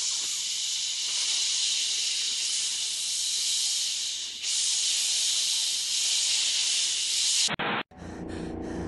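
Sleestaks hissing: two long, loud hisses, the second starting about four seconds in, cut off abruptly near the end.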